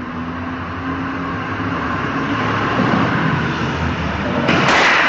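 Heavy truck engine running and growing steadily louder as the truck forces its way between parked cars, with a sudden loud harsh noise starting about four and a half seconds in.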